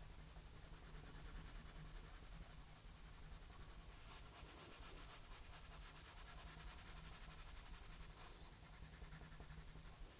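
Colored pencil scratching faintly on paper in rapid back-and-forth shading strokes.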